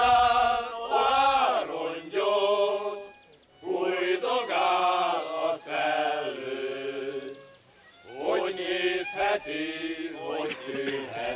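Men's choir singing a Hungarian song with a violin accompanying, in sung phrases broken by short pauses about three and a half and eight seconds in.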